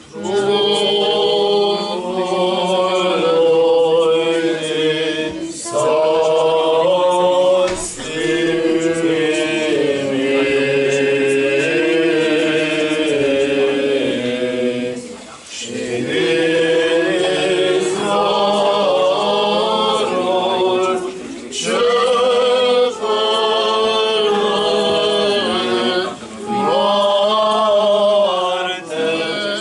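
Unaccompanied choir singing Romanian Orthodox liturgical chant while communion is given, in several long phrases with brief pauses between them.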